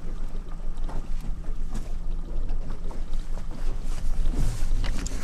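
Boat's outboard motor running steadily at low trolling speed, a constant low hum, with wind noise over it.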